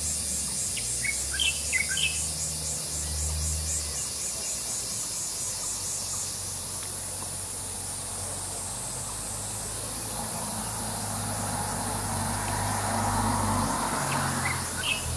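Outdoor insect chorus: a steady high shrill that pulses in the first half. A few short bird chirps come about a second in and again near the end, and a soft rush of noise swells and fades in the second half.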